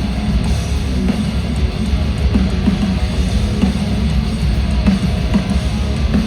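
Live heavy rock band playing loudly: distorted electric guitars, bass and drum kit, with no vocals.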